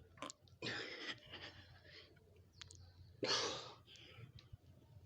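A man breathing out hard from the effort of push-ups: two forceful breaths about two and a half seconds apart, with fainter breathing in between.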